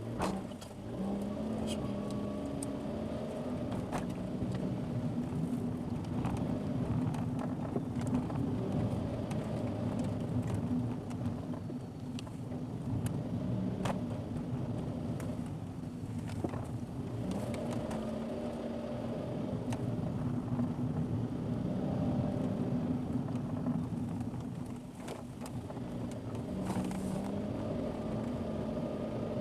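Car engine and road noise heard from inside the cabin, a steady engine note that shifts in pitch a few times, with scattered light knocks.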